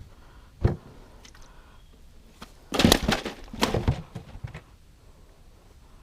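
A single knock about half a second in, then a second and a half of clattering knocks and handling noises near the middle.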